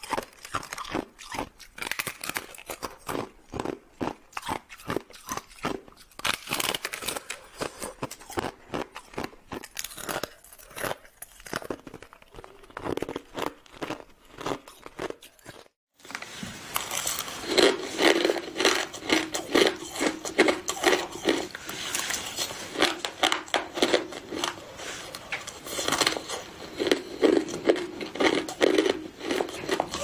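Close-miked crunching of ice being bitten and chewed, a rapid run of crisp crunches. About halfway through there is a brief drop-out, and after it the crunching is louder and fuller as a mouthful of crushed ice is chewed.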